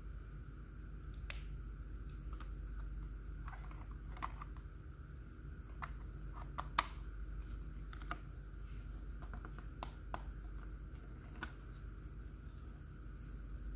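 Scattered light plastic clicks and taps as a CR2032 coin battery is fitted into a plastic toy drawing board and its small plastic battery cover is pressed shut, the sharpest click about halfway through. A steady low hum sits underneath.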